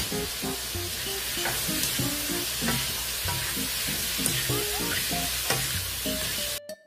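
Blanched mushrooms sizzling in a hot frying pan as they are stirred, with background music of short plucked notes underneath. The sizzling cuts off suddenly near the end, leaving only the music.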